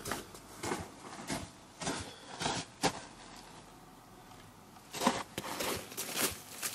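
Booted footsteps crunching on snow-dusted leaf litter, a step about every half second, pausing for about two seconds midway and then starting again.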